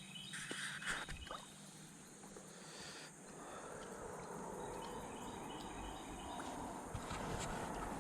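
Outdoor creekside ambience: a steady wash of noise with insects chirping in short, evenly repeating pulses, and a brief splashy rustle in the first second or so.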